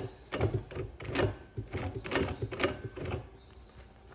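Double-needle industrial sewing machine run slowly through vinyl upholstery, its needle bar clacking in separate stitch strokes about two to three a second, easing off near the end.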